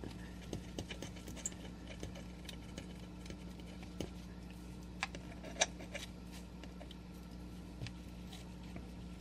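Fountain pen nib of a Noodler's Boston Safety pen scratching and tapping on paper as it draws a heavy inked outline. Faint strokes and a few light clicks, the sharpest about five and a half seconds in, over a steady low hum.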